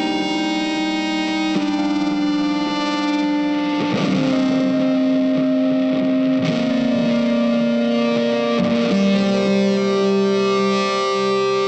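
Background music: sustained electric guitar chords with distortion, changing every second or two.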